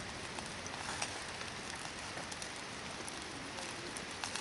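Hardwood campfire burning with a steady hiss and a few faint crackles.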